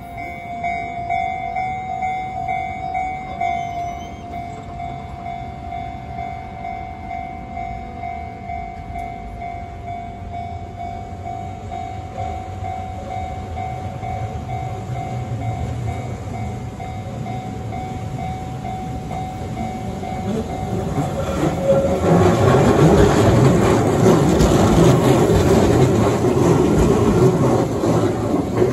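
Japanese level-crossing warning bell ringing rhythmically as a Keihan electric train approaches. About three quarters of the way in, the train passes close by and the louder rumble of its wheels and motors drowns out the bell.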